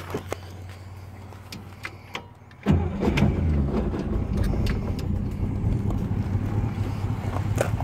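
A few light clicks, then the 1963 Oldsmobile F-85 Cutlass's 215 aluminum V8, fitted with glasspack mufflers, fires suddenly about two and a half seconds in and settles into a steady idle, running well.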